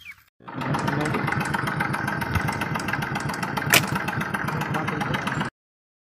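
A steady engine-like running noise that starts abruptly just after a short gap. It has one sharp click a little past the middle and stops dead shortly before the end.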